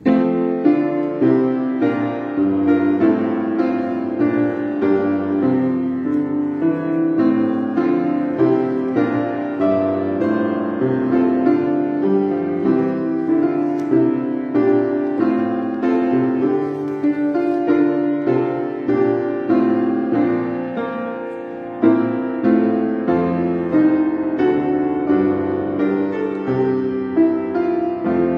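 A keyboard instrument playing a slow piece in held chords, with a steady bass line under the chords. The music starts suddenly at the outset.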